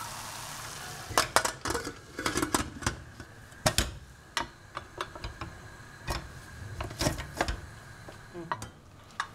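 Pressure cooker lid being put on and its weight handled: a string of sharp metallic clicks and clanks of lid, weight and pot. A steady sizzle from the pot fades out about a second in.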